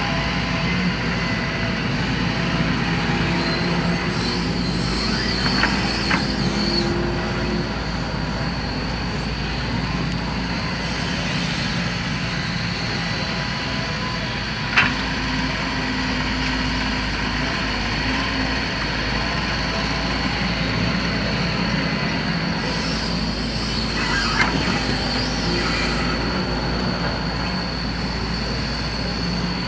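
Excavator's diesel engine running steadily under work, with a thin high whine held throughout. There is one sharp knock about halfway through and a few fainter clanks.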